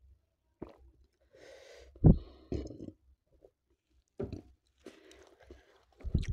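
Close-miked mouth sounds while drinking water after very spicy food: swallowing, breathy exhales and small clicks, with one sharp thump about two seconds in.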